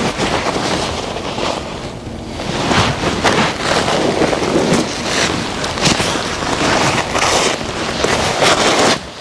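Synthetic-fabric padded jackets and other used clothes rustling and swishing as they are pulled from a heap and lifted, in repeated swells of crinkly noise.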